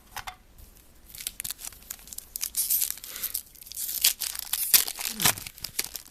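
Foil wrapper of a trading-card pack being torn open and crinkled: a run of quick rips and crinkles from about a second in until near the end.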